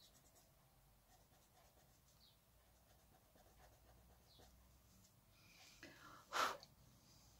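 Faint scratching of an Inktense watercolour pencil shading on paper, with a brief louder burst of noise about six and a half seconds in.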